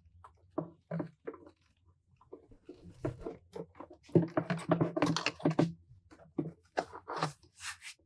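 Plastic air intake box of a Yamaha F225 outboard being pushed and worked onto the engine's throttle bodies and rubber boots: a string of scrapes, creaks and clunks, busiest about halfway through.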